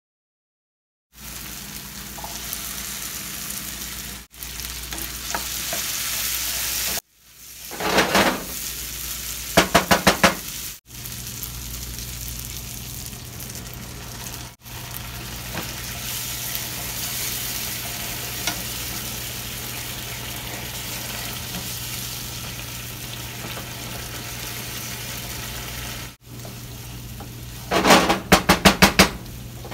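Food sizzling as it fries in oil in a pan, with a spoon scraping and stirring in runs of quick strokes a few times. The sizzle breaks off abruptly several times between clips.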